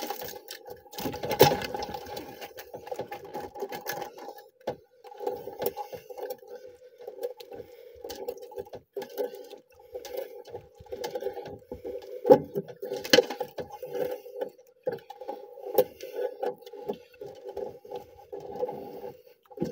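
Monofilament handline being hauled in hand over hand over the side of an outrigger boat. The line gives a steady-pitched hum that comes and goes in short, irregular runs, and there are a few sharp knocks against the hull, one about a second in and two near the middle.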